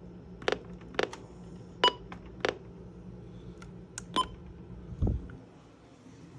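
Buttons on a NOAA weather radio being pressed: about six sharp clicks, two of them with a brief electronic key beep. A low thump follows about five seconds in.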